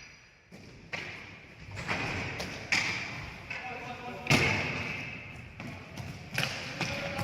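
Ball hockey play in an echoing rink: sticks striking the ball and the ball knocking off the boards, a sharp knock every second or so, the loudest a little past four seconds in. Players call out between the knocks.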